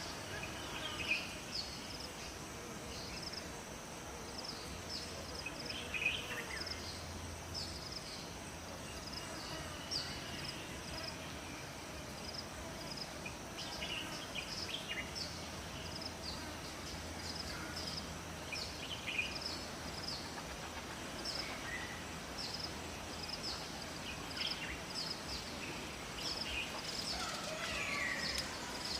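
Songbirds chirping over a steady rush of flowing water: many short high chirps throughout, and a few longer calls that slide down in pitch, one near the end.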